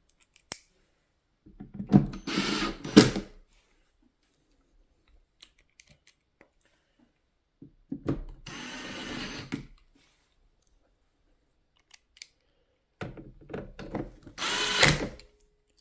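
Cordless power driver whirring in three short bursts, each about two seconds long, as it drives screws into the unit's plastic housing.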